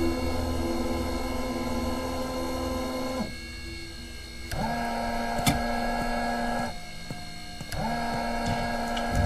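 Gas pump's motor whirring in three runs as fuel is pumped into a car, each run spinning up and winding down, with a click in the middle run.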